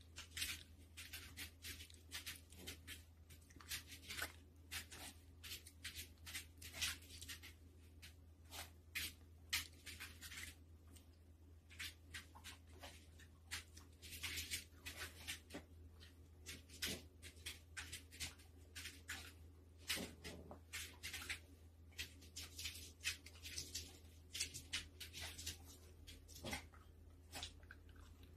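A poodle's claws clicking and scrabbling on a hard wooden floor in many quick, irregular taps as it hops and dances around, over a steady low hum.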